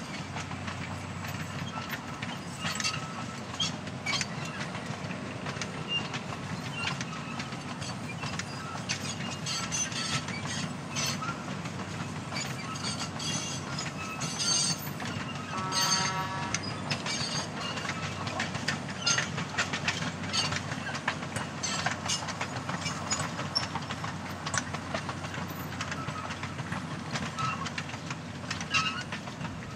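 Loaded cane bins of a narrow-gauge sugar cane train rolling past at steady speed: a continuous low rumble with many sharp clicks and clanks from the wheels and couplings. A short squeal sounds about halfway through.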